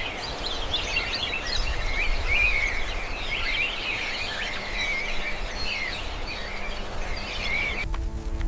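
Many small birds chirping and singing at once over a low rumble of outdoor background noise. The birdsong cuts off abruptly near the end as music with steady sustained notes comes in.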